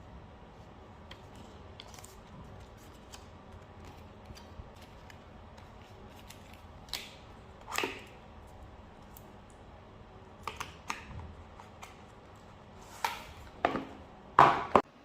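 Hands handling a phone box and its packaging: scattered short rustles and clicks over a faint steady background, with a cluster of louder ones near the end.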